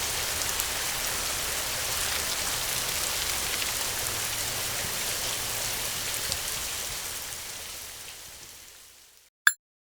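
Steady rain falling, an even hiss of drops with scattered sharper ticks, fading out over the last few seconds to silence. A short sharp click sounds near the very end.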